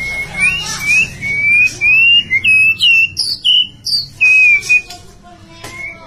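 White-rumped shama singing: a run of clear whistled notes, each a short upward or downward swoop, about two a second, fading near the end.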